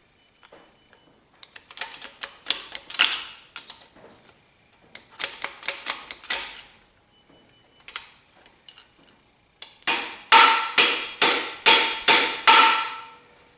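Hammer blows on metal, working a stuck part out of a seized small-block Chevy 350 engine: three runs of sharp, ringing strikes, the last and loudest about seven blows near the end.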